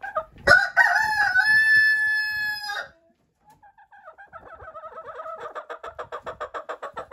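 A rooster crows once, a call of about two seconds ending on a long held note. After a short pause a chicken starts clucking rapidly in an even rhythm, about seven clucks a second, growing louder.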